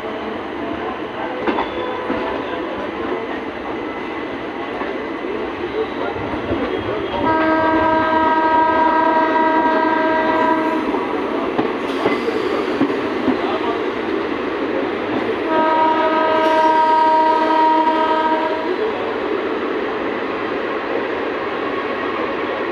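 Rumble and rattle of a DMU train running, heard from its open coach door, with the coaches of an express running alongside on the next track. A train horn sounds two long, steady blasts, one about seven seconds in and another about fifteen seconds in, each lasting some three seconds.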